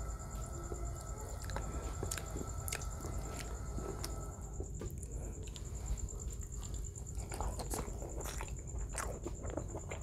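Hands pulling apart a whole roast chicken asado, then close-miked biting and chewing of the chicken, with many small mouth clicks and crackles.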